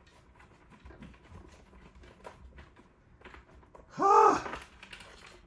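Faint small clicks and scrapes of hands working on the parts, then about four seconds in a short, loud, strained groan of effort from a person pulling hard.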